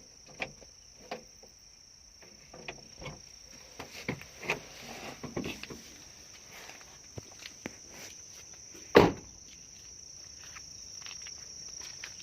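Crickets trilling steadily in the background, with scattered light knocks and handling noises and one loud sharp thump about nine seconds in.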